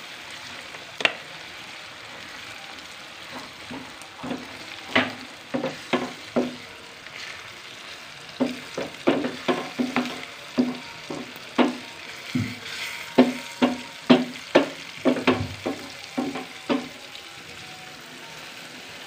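Chopped tomato and green-pepper masala sizzling in a frying pan on a gas stove, with a wooden spatula scraping and knocking against the pan. The strokes are irregular: one about a second in, a few around five to six seconds, then a quick run of them through the middle and latter part.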